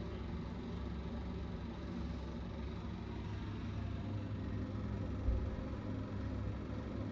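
Steady low rumble of background room noise, with one soft low thump about five seconds in.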